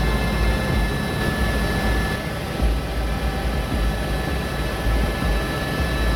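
Helicopter cabin noise in flight: a deep, steady rumble with constant high whining tones on top.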